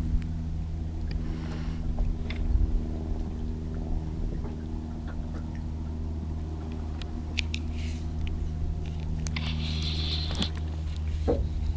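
A boat motor running steadily with a low, even hum. A few short clicks and a brief hiss come near the end.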